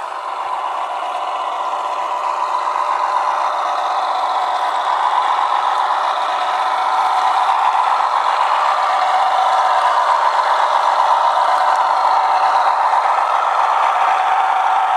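Diesel engine sound from a Massoth sound decoder playing through the small onboard speaker of a USA Trains G-gauge diesel switcher as it runs, with a light rattle of the wheels on the track. It grows louder over the first several seconds, then holds steady.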